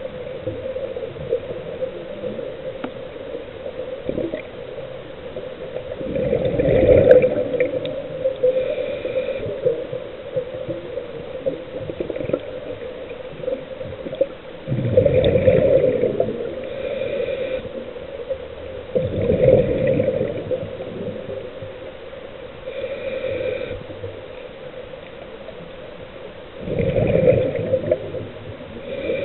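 Scuba diver's own breathing through the regulator underwater: short hissing inhalations and four louder bubbling exhalations a few seconds apart, over a steady hum.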